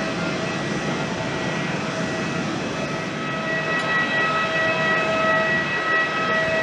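Jet airliner engines running: a steady rushing noise with several whining tones that grow louder about halfway through.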